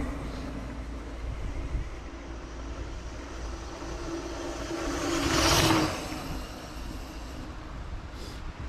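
Mountain bike in motion, heard from the rider's camera: wind rushing over the microphone and tyres running on the trail, with a steady low hum for the first six seconds and a louder gust of rushing noise about five and a half seconds in.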